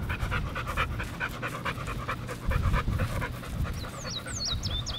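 An American Bulldog mix panting hard close to the microphone, a quick, even rhythm of breaths that fades out a little past halfway.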